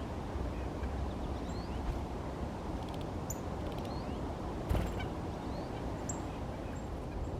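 Small songbirds giving short, high chirps, a few scattered over several seconds, over a steady low background rumble; a single knock comes about four and a half seconds in.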